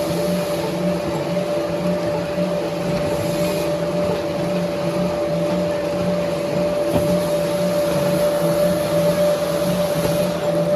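Wood-peeling machinery running steadily, with a constant high whine over a lower hum that pulses at a regular rhythm.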